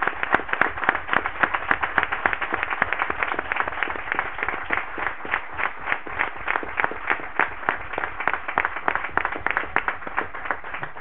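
Applause from a small group of people: many hands clapping densely and steadily.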